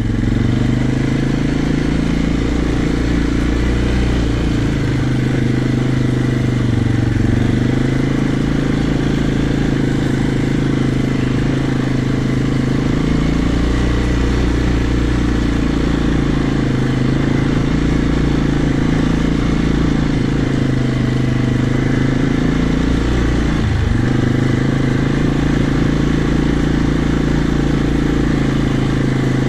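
Quad (ATV) engine running steadily while riding, with one brief dip in the engine note a little past three-quarters of the way through.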